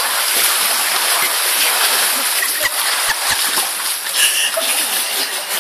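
Water splashing steadily as swimmers thrash their arms through a pool.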